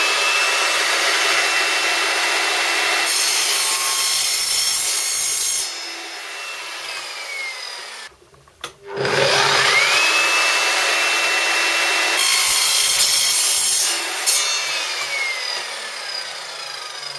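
Evolution sliding mitre saw cutting aluminium angle, twice. Each time the motor whines up to speed and holds a steady tone, the blade goes through the metal with a harsher, brighter sound for about two seconds, and the motor winds down.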